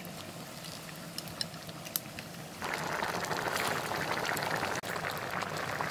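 A pot of thick papaya dal bubbling and spluttering at a rolling simmer in an iron kadai. It comes in abruptly about two and a half seconds in, after a quieter stretch with a few faint clicks.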